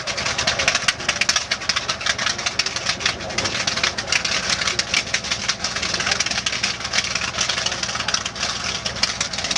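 Twin radial piston engines of a B-25 Mitchell bomber running steadily at low power on the ground, a dense rapid crackle over a low drone.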